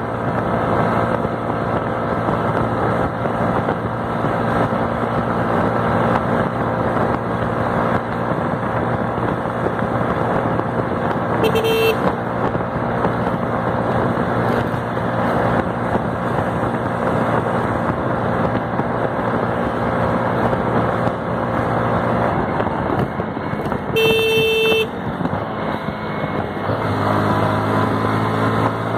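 Hero Glamour motorcycle's 125 cc single-cylinder engine running hard at about 100 km/h, over a steady rush of wind and road noise. A vehicle horn honks briefly about twelve seconds in and again, longer, about twenty-four seconds in; near the end the engine note drops lower as the bike slows.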